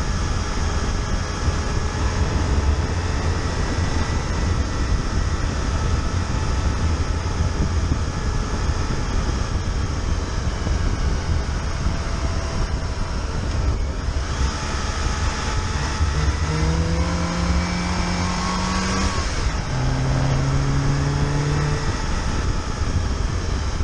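Fiat Panda engine and road noise heard from inside the moving car, a steady low rumble. Past the middle the engine note climbs for a few seconds, then drops to a lower steady note.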